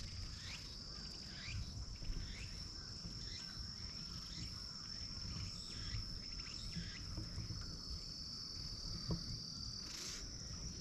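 Insects shrilling in one steady high-pitched drone, with faint short chirps repeating over it.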